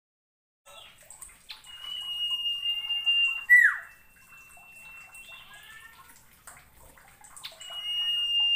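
Common iora (sirtu) singing, starting about a second in: a long, steady, high whistle that ends in a sharp downward-swooping note, soft short chirps between, and the long whistle begins again near the end.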